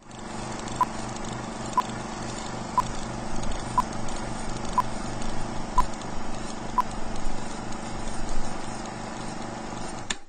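Film projector running with a fast rhythmic clatter under a film-leader countdown: a short beep once a second, seven beeps in all. The beeps stop about 7 s in, the projector runs on, and the sound cuts off suddenly just after 10 s.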